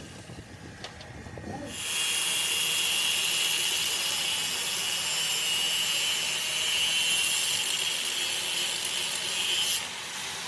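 Steady, harsh metalworking hiss from work on a worn excavator bucket pin. It starts about two seconds in and cuts off suddenly near the end.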